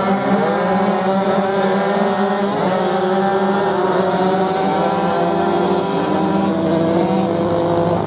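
Dirt bike engines revving hard, their pitch rising and falling as the bikes accelerate and change gear, with more than one engine note overlapping over a steady low drone.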